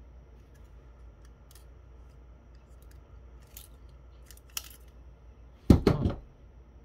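Small plastic clicks and taps from a digital camera's plastic chassis and circuit boards being handled and pried apart by hand, then a louder brief creaking snap near the end as a small circuit board is pulled free.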